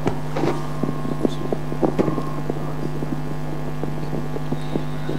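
Steady low electrical hum with scattered small clicks and crackles.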